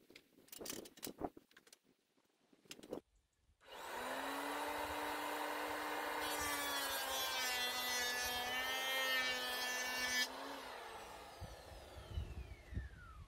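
A few light knocks, then an electric mitre saw starts with a steady whine, cuts through a wooden board with a harsher rasping noise for about four seconds, and is switched off, its blade winding down with a falling whine.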